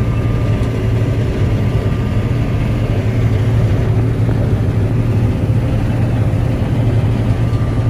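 Combine harvester running steadily while harvesting wheat: an even, unchanging engine hum with a faint steady whine above it.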